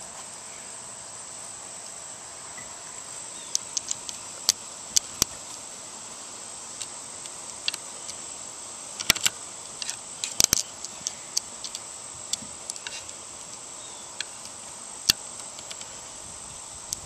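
Flathead screwdriver turning a longer-threaded replacement screw into a Mossberg 500 shotgun's steel receiver: scattered sharp metal clicks and ticks, closest together about nine to eleven seconds in, over a constant high-pitched hum.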